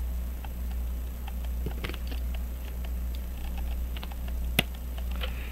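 Small clicks and taps of steel pliers and fingers handling a brass verge fusee pocket watch movement while working at its stuck pins, with one sharper click about four and a half seconds in.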